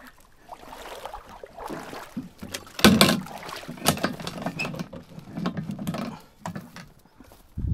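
Fishing gear being handled at a small aluminium boat: scattered knocks and clatter of a plastic box and equipment, with rustling in between, the loudest knock about three seconds in.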